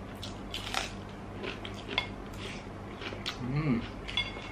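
A metal spoon clinking and scraping against a ceramic plate in scattered light clicks, one with a short metallic ring near the end.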